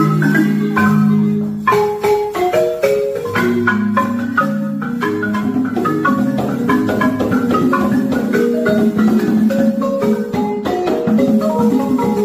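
Siamou balafons, gourd-resonated wooden xylophones, played together in quick runs of struck notes, several of them falling in pitch, over ringing low keys.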